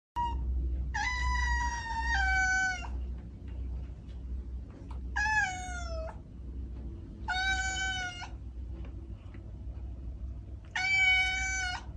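A cat meowing four times, each meow long and drawn out: the first steps down in pitch partway through and the second slides downward. A steady low hum runs underneath.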